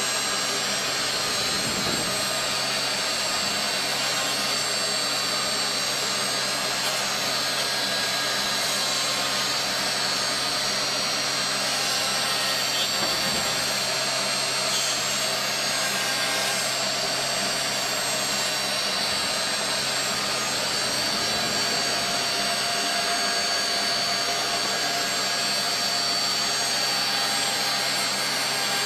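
CNC router spindle running at high speed while a small end mill cuts outlines into a flat sheet: a steady high whine over constant machine noise.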